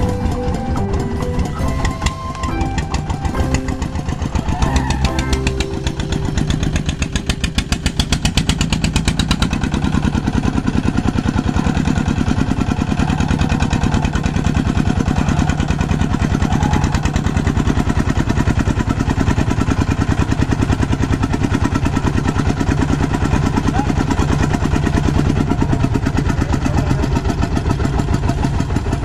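Music for the first several seconds, then the engine of a self-propelled rice threshing machine runs steadily, with a fast, even chugging, as the machine is driven along.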